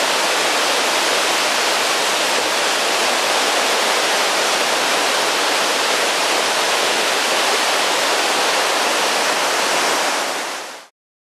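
Steady rushing of river water flowing over rocks, an even hiss that fades out shortly before the end.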